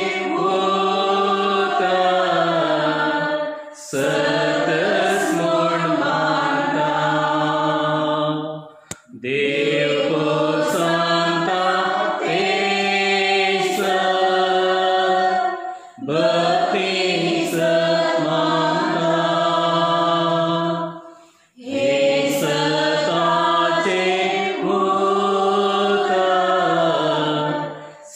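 Voices singing a slow devotional hymn for Eucharistic adoration, in long phrases of about four to seven seconds with brief pauses for breath between them.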